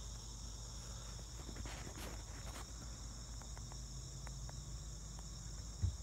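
Steady high insect chorus, with a few faint clicks.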